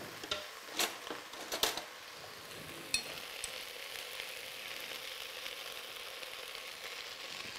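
Onion, carrots, red lentils and diced potatoes frying in oil in a pot, a steady sizzle, with a few light clicks of kitchen utensils in the first few seconds.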